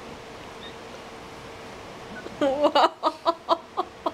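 Faint steady room hum, then a little over two seconds in a burst of laughter: a wavering pitched sound breaking into a run of short 'ha' pulses, about four a second.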